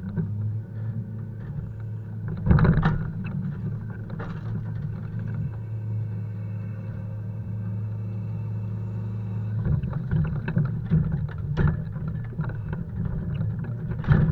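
Volvo FH 520's 13-litre inline-six diesel running steadily during log unloading, with several heavy knocks of logs and loading gear; the loudest comes about two and a half seconds in, others later on and just before the end.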